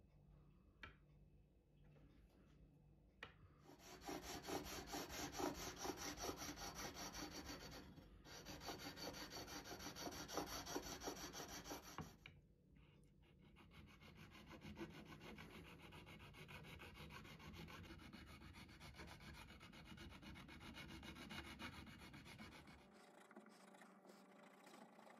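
Rapid back-and-forth rubbing of a file or abrasive stone on a guitar neck's metal frets during fret dressing. A louder stretch of strokes begins about four seconds in, with a short break partway through. A quieter run of rubbing follows and stops near the end.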